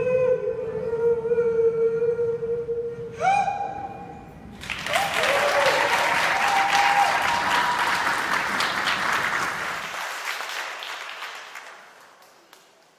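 An elderly woman singing a long held note into a microphone, then a short higher note. About four and a half seconds in, an audience breaks into applause, which fades out near the end.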